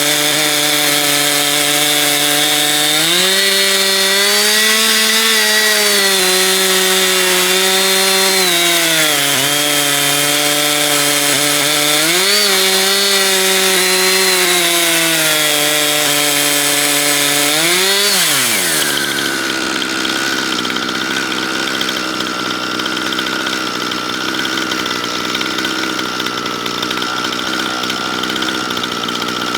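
Two-stroke chainsaw on an Alaskan chainsaw mill, running at high revs while cutting. The engine note rises and sags as the load changes, then drops sharply about two-thirds of the way through and carries on at a steadier, different note.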